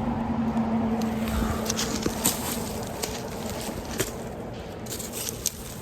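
A flying insect, a fly or bee, buzzing close by in a steady drone that fades after about two and a half seconds. A few sharp clicks are heard later on.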